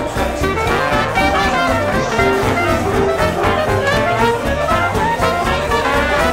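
Background music: upbeat jazz with brass horns and a steady beat.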